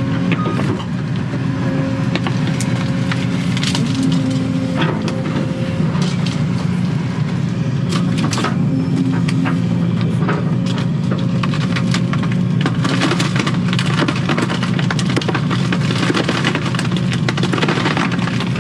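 Excavator diesel engine running steadily, heard from inside the cab, with repeated cracks and snaps of wood splintering as the bucket breaks apart a standing tree trunk and stumps. The cracking is thickest in the second half.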